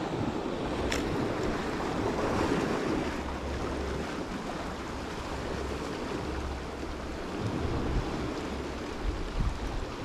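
Sea waves washing against shore rocks, a steady surf wash, with wind buffeting the microphone in low rumbles. A single short click about a second in.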